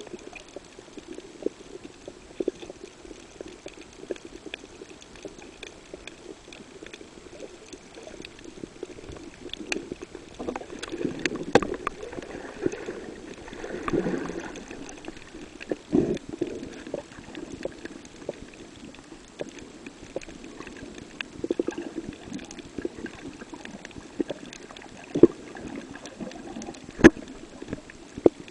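Underwater sound picked up through a camera's waterproof housing: a steady low rush of water, scattered small clicks and crackles, and a few sharp knocks near the end.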